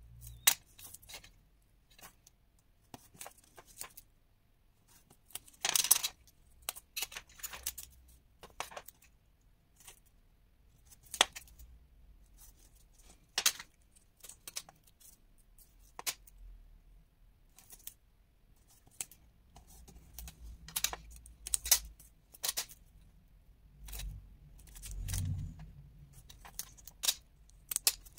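Double-sided tape being pulled from its roll and pressed by hand along the edges of a kraft card frame: scattered clicks, rustles and short rasps of the tape peeling and the card being handled, with a duller low rub on the table about three-quarters through.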